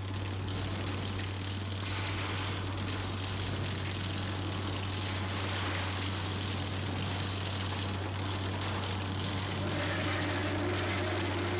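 Harsh noise recording: a constant low hum under a dense, rough wall of noise that thickens a little about two seconds in and again near the end, engine-like in character.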